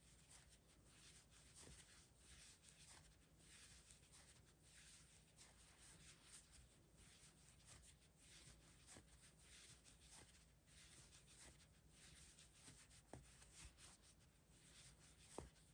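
Near silence, with the faint scratchy rustle of a metal crochet hook pulling velvet yarn through stitches, recurring roughly once a second as each single crochet is worked.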